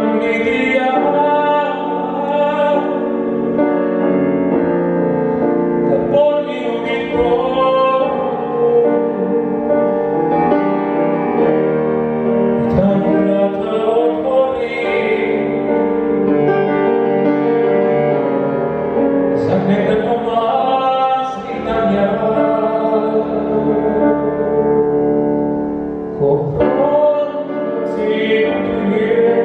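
Male voice singing a song in Serbian with piano accompaniment, holding long notes with a slight waver.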